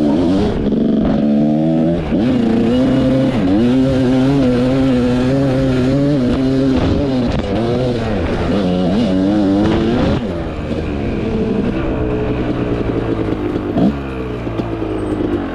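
Dirt bike engine under way on a trail ride, its pitch climbing and dropping again and again as the throttle is worked and gears change, then settling lower near the end.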